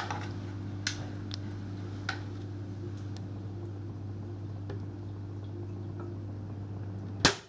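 A .177 air pistol firing once near the end, a single sharp crack with its muzzle pressed against a water-filled plastic bottle. Before it, a steady low hum with a few faint clicks.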